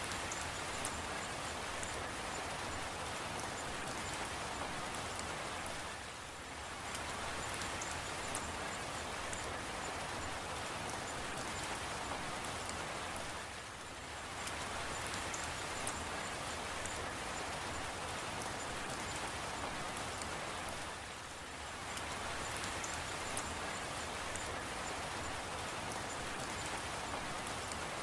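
Steady rain falling, a continuous hiss with fine ticks of individual drops. The level dips briefly about every seven or eight seconds.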